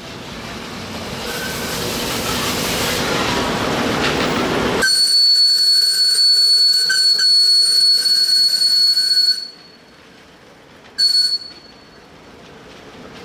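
Live-steam miniature ride-on locomotive modelled on Alishan Shay No. 14: a rushing steam noise builds over about five seconds. Then the locomotive's steam whistle blows one long steady blast of about four and a half seconds, followed a second and a half later by a short toot.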